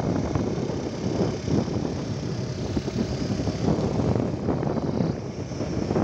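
Wind buffeting the phone's microphone: a loud, unsteady low rumble that rises and falls throughout.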